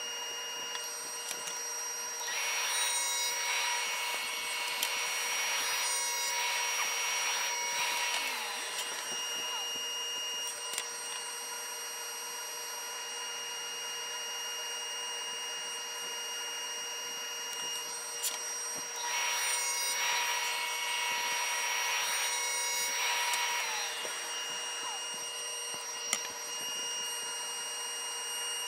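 Table saw with a stack dado set running with a steady hum, cutting dadoes into a wooden board twice: once from about two seconds in for some six seconds, and again from about nineteen seconds in for some four seconds.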